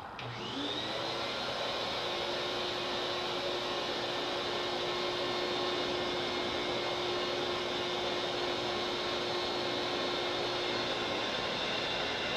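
An electric air blower switching on, its whine rising as it spins up over the first second and then running steadily with a loud rush of air, feeding combustion air to a homemade propane furnace torch.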